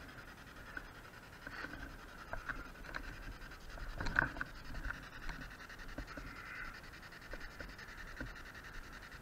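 Rubbing and scraping with scattered clicks as a handheld camera brushes against bunker concrete and the person carrying it clambers about; the loudest cluster comes about four seconds in.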